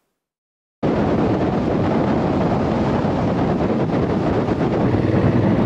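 Silence, then about a second in a motorcycle on the move cuts in suddenly: the engine running steadily under heavy wind noise on the mounted camera's microphone.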